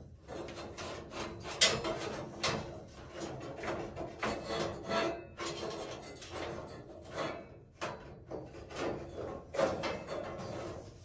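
Metal heater guard cage of a sauna heater being worked into place on top of the guard below: irregular scraping, rubbing and clicking as its tabs are pushed into their slots, with one sharp click about a second and a half in.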